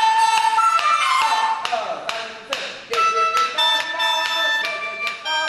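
Chinese wind instruments, bamboo flute (dizi) and sheng mouth organ, playing a tune. Several notes sound together, each held briefly before the next change of pitch.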